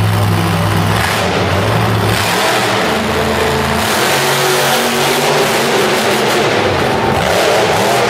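Monster truck engines revving loud and hard, the pitch rising and falling as the throttle is worked.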